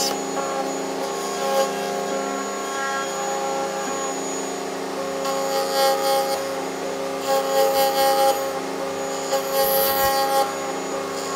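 Table-mounted router running at speed, its bit cutting dovetails in the end of a board held in a dovetail jig. A steady motor whine, with three louder, rougher passes of about a second each in the second half as the jig is pushed across the bit.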